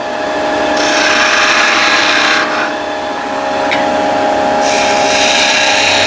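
Wood lathe running with a steady hum while a turning tool cuts a spinning wooden blank, giving two long hissing cutting passes of a couple of seconds each, with a quieter stretch between them.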